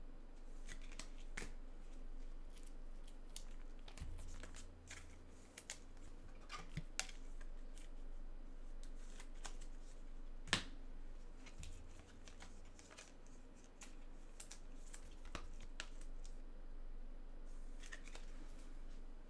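Trading cards being handled and shuffled: scattered light clicks and rustles, with one sharp snap about ten seconds in.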